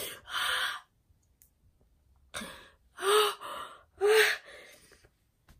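A woman weeping without words in an acted breakdown: a breathy, sobbing exhale, a pause, then gasping breaths broken by two short, wavering cries about a second apart.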